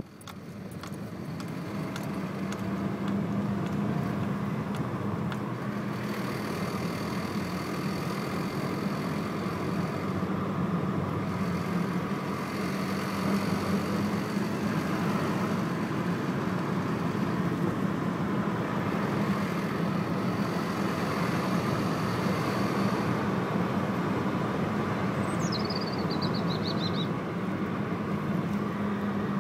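1996 VW Golf Mk3 1.4 four-cylinder petrol engine running under way with a steady low rattling, grinding drone, the noise the owner hears in every gear at about 1500 RPM and likens to a tractor; two garages could not find its cause. The sound builds over the first couple of seconds, then holds steady.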